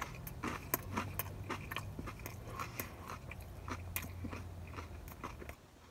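Close-up chewing of a crisp-crusted Ohio Valley-style pizza square: an irregular string of sharp crunches and mouth clicks as the crust is chewed.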